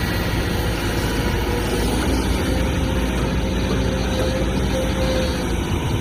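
Kobelco SK200 hydraulic excavator's diesel engine running steadily while it works.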